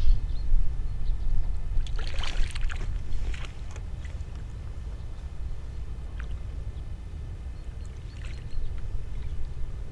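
A hooked fish splashing at the surface as it is reeled in to the bank, the loudest splash about two seconds in and smaller ones later. A steady low wind rumble on the microphone runs underneath.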